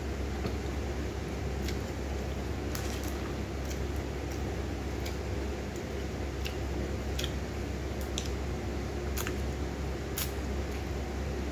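Close-up eating sounds of someone eating by hand: chewing with scattered sharp mouth clicks at irregular intervals, over a steady low hum.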